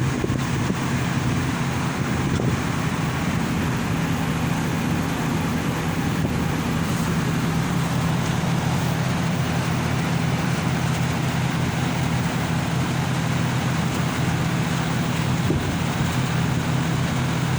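Outdoor condensing units of two Midea MDV 24000 BTU DC inverter ductless air conditioners running on commissioning test: a steady low compressor and fan hum with an even whoosh of airflow.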